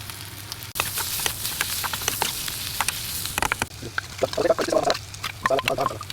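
Food sizzling in a hot cooking pan, the hiss jumping up suddenly about a second in, with the clicks and scrapes of a spoon stirring. From about halfway, a warbling mid-pitched voice or call is heard over it.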